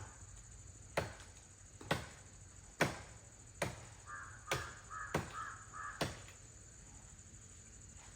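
About seven sharp chopping strikes on wood, roughly one a second, stopping about six seconds in. A crow caws five times in quick succession about halfway through.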